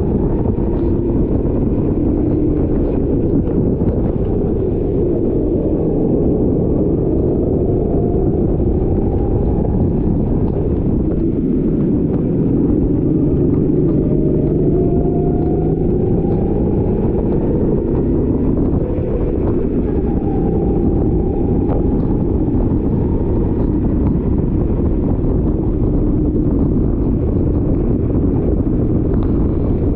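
Rental go-kart engine running hard, its pitch rising several times as it accelerates, over a loud, steady low rumble.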